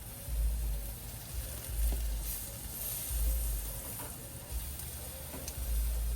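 Shrimp sizzling on a hot grill grate as they are laid down, the hiss swelling a couple of seconds in, with a few light clicks. A low rumble comes and goes in gusts.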